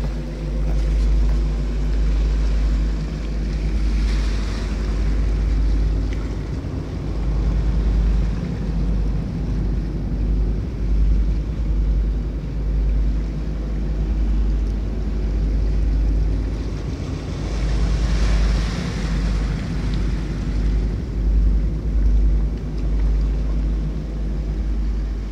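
Wind buffeting the phone's microphone with a heavy low rumble, over the sea washing against rocks; the surf swells louder about four seconds in and again around eighteen seconds.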